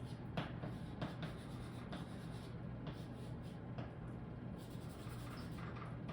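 Writing: scratchy pen strokes with a few light clicks and taps, over a steady low hum.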